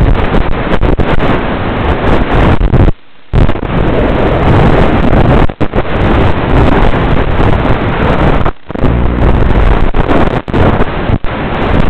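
Loud, rushing wind and propeller noise on the onboard microphone of a Hardcore 31 FPV flying wing in fast, low flight. It cuts out for a moment about three seconds in and dips briefly several more times.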